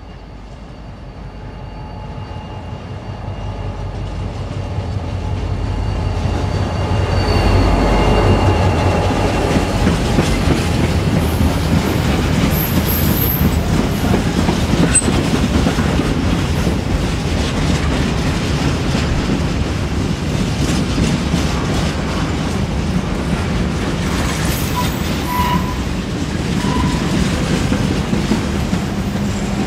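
GM 071 class diesel locomotive with its EMD V12 two-stroke engine approaching, growing louder over the first several seconds, then a long train of empty steel flat wagons rolling past with continuous wheel clatter over the rails. A few brief high squeals from the wheels come through the clatter.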